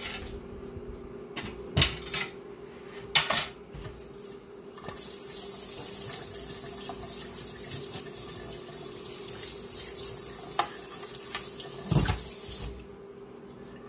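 Kitchen faucet running into the sink from a pull-out sprayer head: a steady rush of water that starts about five seconds in and shuts off near the end. A few sharp knocks and clatters at the sink come before it and once more just before it stops.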